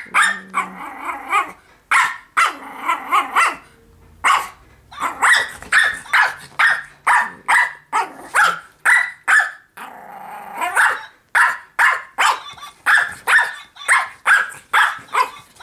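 Small pug-type dog play-barking at a plush toy dog: sharp high barks, a few at first, then quick runs of about two or three a second.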